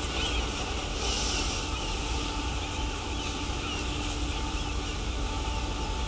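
Harbour ambience: a steady mechanical hum over a constant wash of noise, with a low rumble of wind on the microphone.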